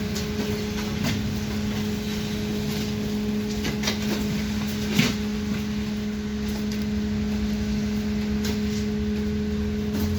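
Cabin sound of a BKM 321 trolleybus on the move: a steady electric hum over a low rumble, with scattered light rattles and one sharper knock about halfway through.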